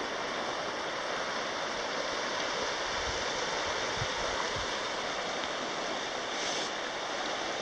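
A mountain creek flowing steadily over rocks, a constant even rush of water.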